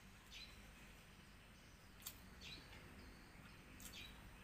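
Near silence: faint background hum with a few faint, brief high ticks or chirps scattered through it.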